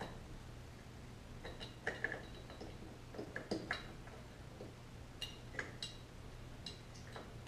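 Small metallic clicks and taps, scattered in short clusters, from hands and tools working loose the carburettor and its fittings on a 1972 Honda CT90. A low steady hum runs underneath.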